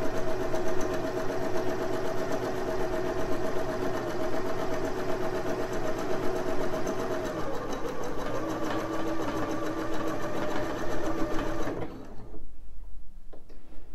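Janome HC8100 computerised sewing machine running steadily while sewing a zigzag stitch. Its pitch drops slightly about halfway through, and it stops about two seconds before the end.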